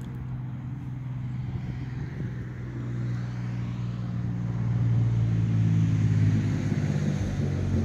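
A motor vehicle's engine running with a steady low hum, growing louder about halfway through.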